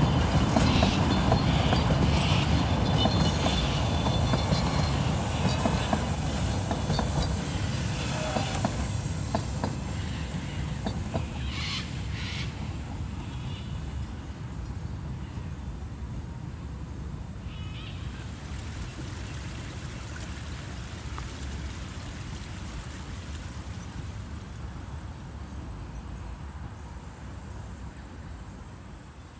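Puffing Billy narrow-gauge steam train running along the track, its rumble and rail clatter fading steadily as it moves away. By the end, insects chirring in the bush are left.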